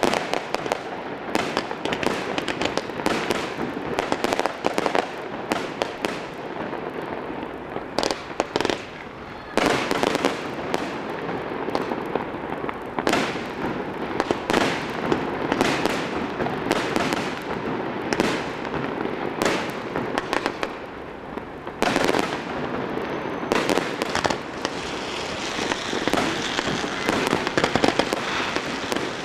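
Aerial fireworks display: shells bursting in a rapid, irregular series of bangs over a continuous crackle. A denser hiss builds near the end as tailed comets rise.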